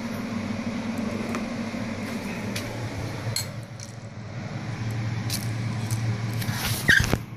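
Light clicks and clinks of a plastic fidget spinner being handled, over a low steady hum, with a louder cluster of clicks near the end.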